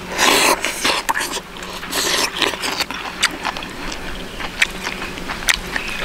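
Close-miked eating of fried pork spare ribs: a noisy bite in the first half second and another about two seconds in, then chewing with crunches and short mouth clicks.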